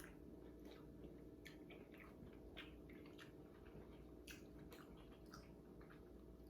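Faint chewing and other eating sounds: scattered small clicks and wet smacks, several a second, over a low steady room hum.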